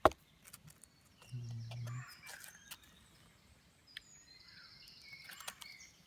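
Quiet woodland ambience: a bird gives a high trill about four seconds in, among scattered faint clicks, with a short low hum a little after one second in.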